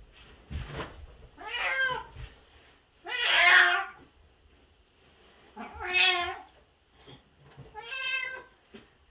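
A house cat meowing four times, about two seconds apart, each meow drawn out and rising then falling in pitch, the second the loudest. A short knock comes just before the first meow.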